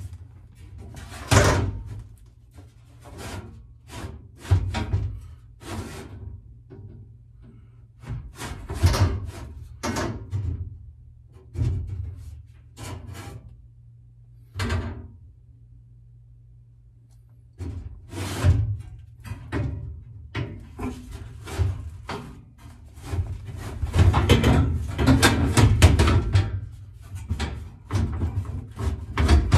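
Irregular knocks, thunks and rubbing of panels and trim against the body of a 1969 Mustang fastback as someone works in its rear interior around the roll bar. There is a quieter stretch about halfway through and a dense run of knocking near the end.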